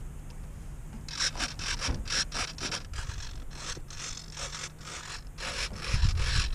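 Repeated rubbing and scraping as a foam RC flying wing is handled and turned against a car hood, starting about a second in as a run of short irregular strokes, with a low bump near the end.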